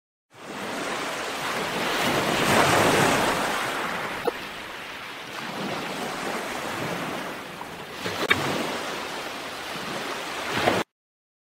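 Shallow surf washing over wet sand at the water's edge: a steady hiss of water that swells and eases, with two faint clicks. It starts suddenly just after the beginning and cuts off abruptly near the end.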